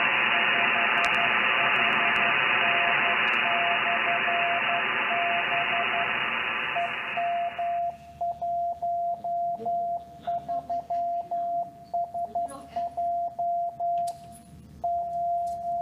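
A Morse code (CW) signal from a ham radio receiver: a single-pitch tone keyed on and off under loud band hiss. A little over halfway through, the AI noise reduction is switched fully in and the hiss vanishes, leaving the clean keyed tone, which ends in a long unbroken note.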